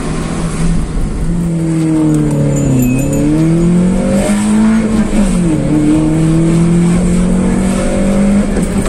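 Nissan Sentra B13's four-cylinder engine fitted with a high-flow air filter, heard from inside the cabin while driving. Its hum dips and rises in pitch as it pulls, drops suddenly about five seconds in, then holds steady.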